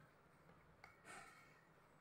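Near silence: room tone, with one faint click about a second in and a short, soft swish right after it.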